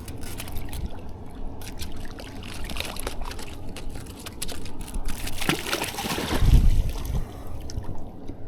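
Stream water trickling, with scattered small clicks and a louder rustling handling noise about five to seven seconds in.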